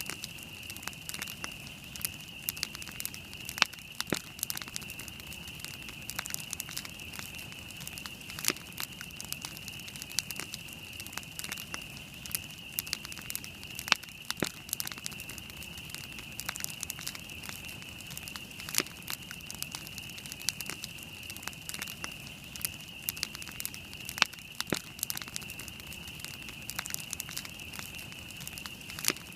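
Wood campfire burning, with irregular sharp crackles and pops and a few louder snaps, over a steady high-pitched hiss.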